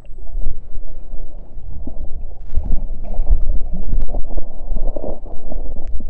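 Irregular water sloshing and gurgling close against a camera held at the surface as it dips under and back up, with a dog paddling right beside it.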